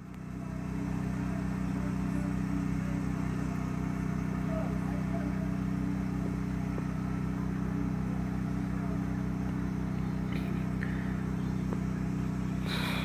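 A large vehicle engine idling steadily with a low, even hum, fading in at the start. A brief higher noise comes near the end.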